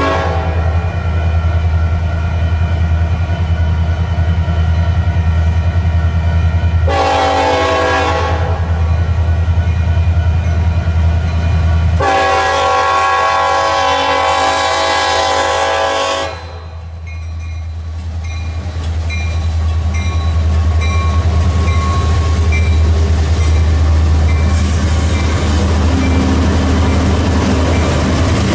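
Freight train's multi-chime air horn blowing the end of a crossing signal (a blast ending just after the start, a short one about seven seconds in, then a long one of about four seconds) over the steady rumble of its diesel locomotives. After the horn stops, the train rolls past with a steady rumble and a regular clicking.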